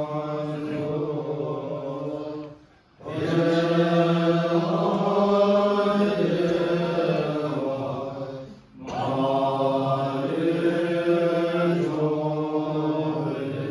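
Buddhist monks chanting a dedication prayer for their meal sponsors in unison, in a melodious Vinaya-style chant of long held tones. The chant breaks twice for breath, about three seconds in and near nine seconds.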